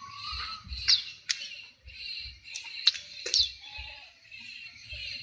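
Many small birds chirping steadily, with quick sharp calls over the top, a few sharp clicks and soft low thuds.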